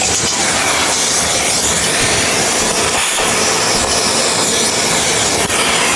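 Vacuum cleaner running with steady suction, its airflow a constant loud hiss with some rubbing as the nozzle is worked over a surface.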